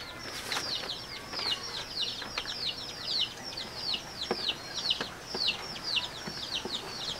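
Chicks peeping: a continuous run of short, falling chirps, several a second and overlapping, with a few faint taps.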